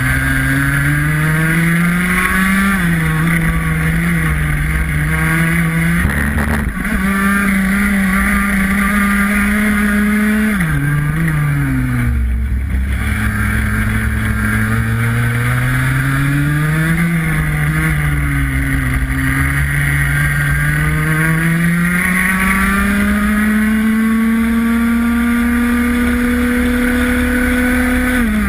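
Racing kart engine heard onboard at full race pace, its revs climbing steadily along the straights and falling sharply when the driver lifts off, about two and a half, eleven and seventeen seconds in and again at the very end. A brief knock about six and a half seconds in.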